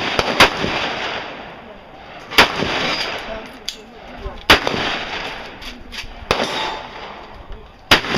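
Gunshots at a shooting range: about five loud single shots spaced roughly two seconds apart, each trailing off in a reverberant ring, with a few fainter shots between them.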